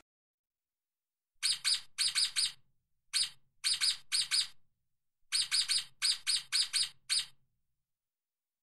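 Stoat (ermine) chirping: short, high, sharp chirps in quick runs of one to four, repeated several times with brief pauses between runs.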